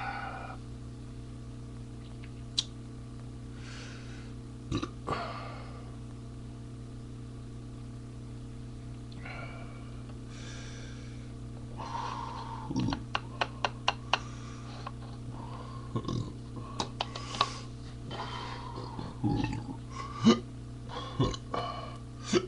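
A man burping several times, the burps coming thicker in the second half among quick sharp clicks, over a steady low hum.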